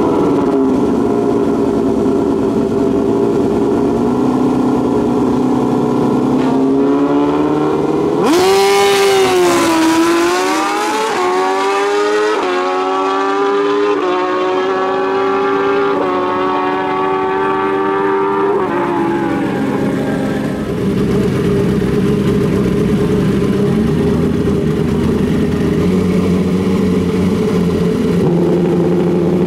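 Two drag-racing motorcycles held at steady revs on the start line, then launching hard about eight seconds in and accelerating away down the strip. The engine pitch climbs and drops back with each of several upshifts before fading into the distance. Afterward the next pair of bikes idles at the line, with a rev near the end.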